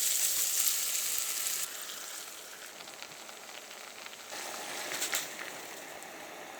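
Food sizzling in a hot frying pan. The sizzle is loud at first and drops off sharply after about a second and a half, then swells again briefly with a few sharp clicks around five seconds in.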